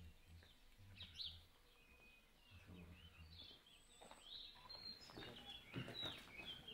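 Faint outdoor ambience with scattered short bird chirps and a low background hum.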